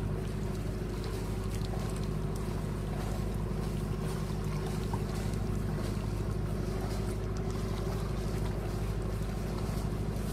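A boat's engine running steadily with an even low hum.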